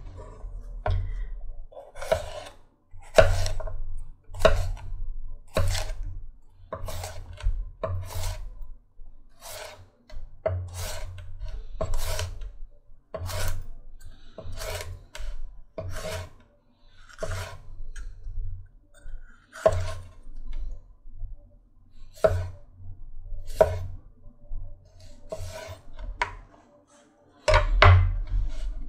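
Chef's knife slicing a green bell pepper into strips on a wooden cutting board: a crisp cut ending in a knock on the board, repeated about once or twice a second, with longer pauses between cuts in the second half.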